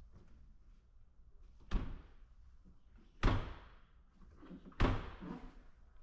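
Three heavy knocks, about a second and a half apart, each with a short ringing tail.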